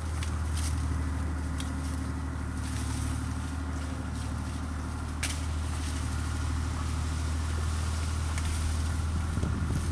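An engine running steadily at idle: a low, even hum. A few sharp clicks sound over it, the clearest about five seconds in.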